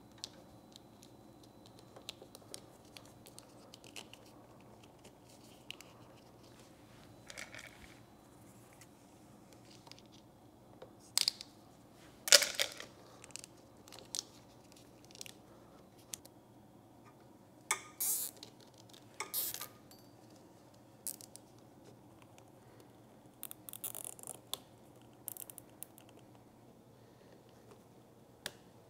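Scattered short plastic clicks, rustles and scrapes from wiring being handled and sleeved in corrugated split-loom tubing, with its plastic connectors, the loudest of them about eleven to twelve seconds in and again around eighteen to twenty seconds. A faint steady hum runs underneath.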